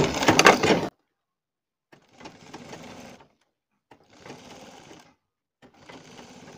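Black domestic sewing machine stitching fabric in three short runs of about a second each, stopping between runs as the cloth is guided under the presser foot. A short, loud clatter comes right at the start.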